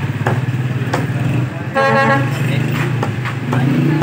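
Meat cleaver chopping chicken on a wooden stump block, a few sharp knocks, over the steady running of street traffic. A vehicle horn toots once, briefly, just before two seconds in.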